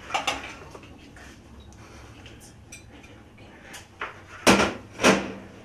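Kitchen handling sounds as an orange is cut with a knife on a cutting board: a knock near the start, light clicks, then two loud, sharp knocks about half a second apart near the end.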